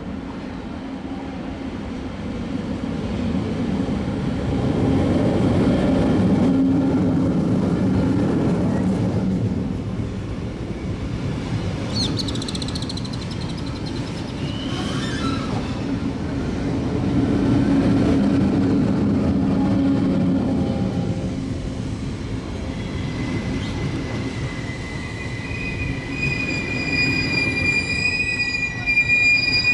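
SBB double-deck S-Bahn train running on the rails: a steady wheel-and-rail rumble that swells twice, with a few short squeals near the middle. A high, steady wheel squeal comes in during the last several seconds and is loudest near the end.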